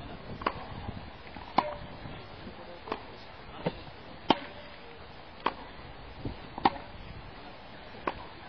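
Tennis balls struck back and forth in a practice rally on a grass court: sharp racket-on-ball thwacks and softer knocks, about one a second, some much louder than others.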